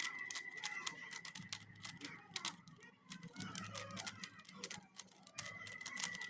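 A 3x3 Rubik's cube being scrambled by hand: quick, irregular clicking of its plastic layers turning.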